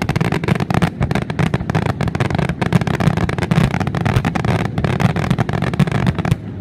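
Aerial fireworks display firing a dense, rapid barrage: many sharp bangs and crackles in quick succession over a continuous low rumble, thinning out near the end.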